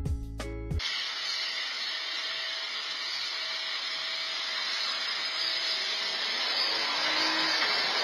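Background music that cuts off under a second in, then the steady hiss of water spraying from a garden hose nozzle.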